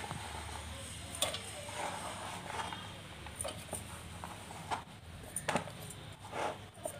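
Chopped bottle gourd pieces being gathered off a cutting board by hand and dropped into a steel mixer-grinder jar: a few faint, scattered knocks and scrapes.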